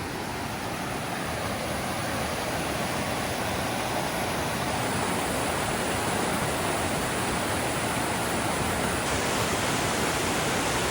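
Steady rush of cascading creek water, growing gradually louder over the first few seconds.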